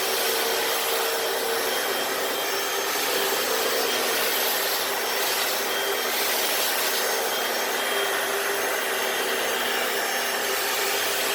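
Hoover FloorMate wet hard-floor cleaner running steadily: its suction motor whines and its spinning brushes scrub across a concrete garage floor during a cleaning pass.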